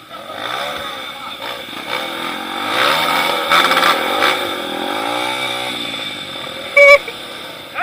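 Off-road motorcycle engine revving up and down several times as the bike is pushed through a difficult stretch of trail, with a short loud sound just before the end.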